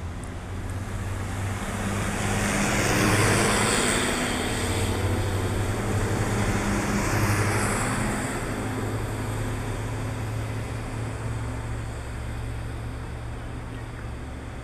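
A large tour coach's diesel engine drones as the coach drives past close by, with engine and tyre noise loudest about three seconds in. A smaller vehicle passes about seven seconds in, and the low engine drone then fades gradually.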